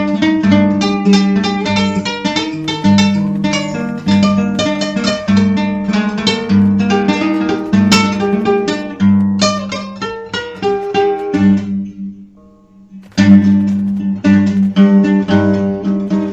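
Acoustic guitar music, quickly plucked notes over a held low note; the playing thins almost to nothing about twelve seconds in, then resumes strongly about a second later.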